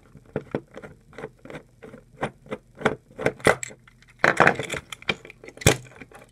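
A screwdriver takes the small screws out of a Plarail toy train's plastic chassis while the parts are handled: a string of irregular light clicks and knocks, a short scraping rattle partway through, and one sharp click near the end.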